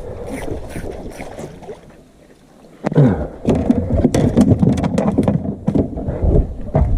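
Clattering knocks and handling noise in a small fishing boat over a low rumble. It eases into a brief lull about two seconds in, then turns suddenly louder and busier about three seconds in.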